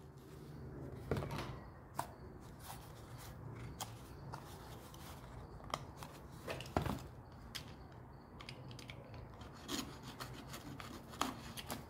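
Faint rubbing and scraping with scattered light clicks as boxed HO-scale model house kits and their packaging are handled and opened, over a low steady hum.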